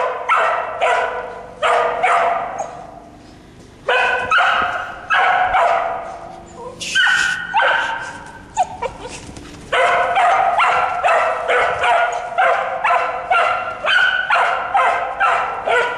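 Cow dog barking over and over in short, sharp barks while working cattle, with a brief lull a few seconds in and a quick steady run of barks in the second half.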